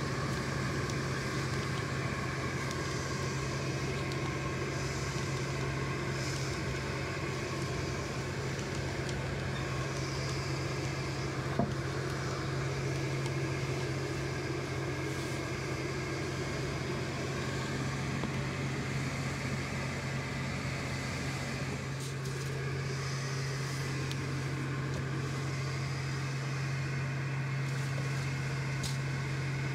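Steady low hum of a fan motor running without change, with a single faint click about a third of the way through.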